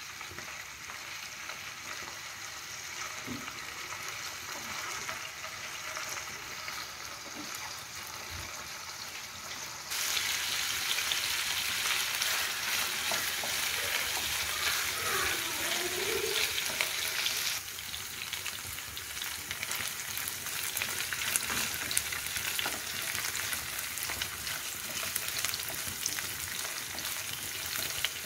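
Small chicken pieces sizzling in sunflower oil in a non-stick frying pan, with light scraping and clicks as a wooden spatula stirs and turns them. The sizzle gets suddenly louder about ten seconds in and drops back down about seven seconds later.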